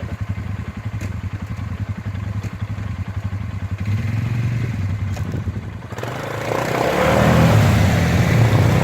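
ATV engine running at a low, even idle, then revved up about six seconds in and kept running louder.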